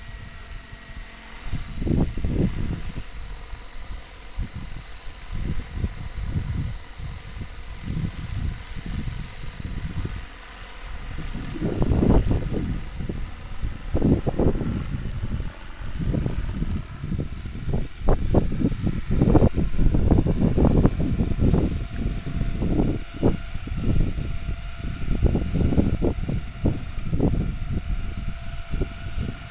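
Wind buffeting the microphone in irregular low gusts, strongest in the second half, over the faint steady whine of a radio-controlled aerobatic helicopter in flight.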